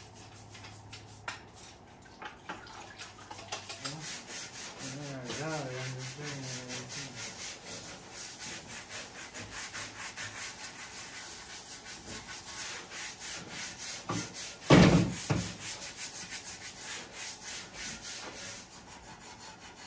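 Scrub brushes scraping caked-on mud off the metal heads of a hula hoe and a shovel, in quick, even back-and-forth strokes. There is one loud thump about three-quarters of the way through.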